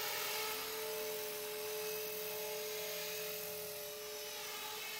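Blade 450 electric radio-controlled helicopter in flight: the motor and rotor make a steady whine that holds its pitch with only a slight waver.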